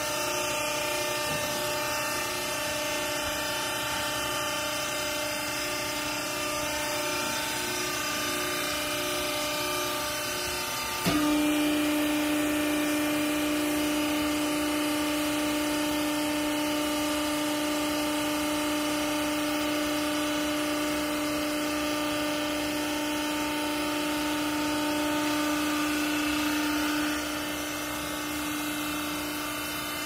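Vertical hydraulic baler's electric motor and hydraulic pump running with a steady drone. About eleven seconds in it jumps to a louder, steady hum as the ram presses down on the clothes in the chamber, then drops back near the end.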